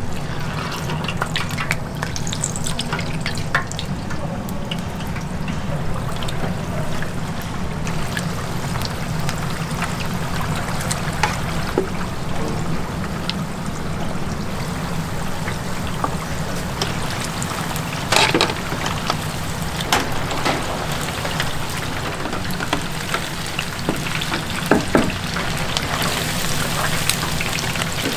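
Battered chicken deep-frying in hot oil: a steady, dense crackling sizzle over a low hum, with a few sharp knocks about two-thirds of the way in and near the end.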